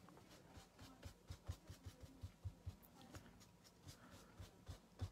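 Faint, light taps and rubs of fingertips dabbing acrylic paint onto a canvas, several a second.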